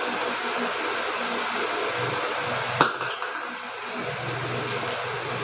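A steady rushing background noise, like a fan running, with one sharp click about three seconds in and a few faint ticks near the end.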